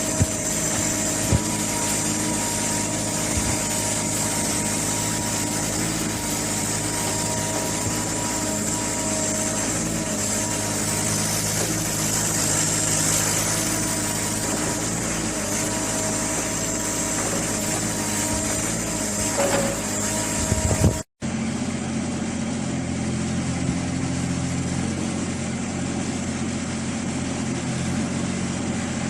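Yanmar diesel engine of a Shanyi SY25-5 compact excavator running steadily, with a steady high whine over it. The sound drops out for a moment about two-thirds of the way through and picks up again with the engine still running.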